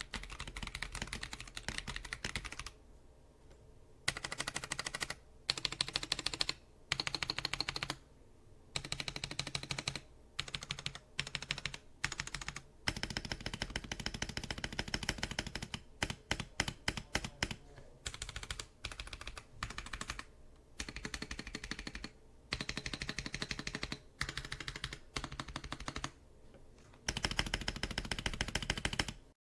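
Typing on a mechanical keyboard fitted with Akko V3 Penguin silent tactile switches: rapid runs of key clicks in bursts lasting one to several seconds, broken by short pauses.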